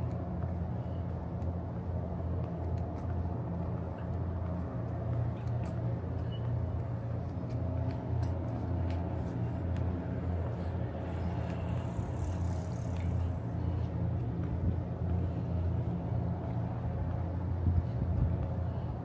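Steady low mechanical hum, like an engine or machinery running, with a brief hiss about eleven seconds in.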